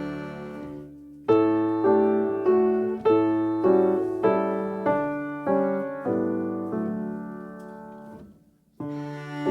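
Background music: a piano playing a slow melody, one note struck about every 0.6 seconds, each ringing and dying away. The music fades out briefly near the end, then starts again.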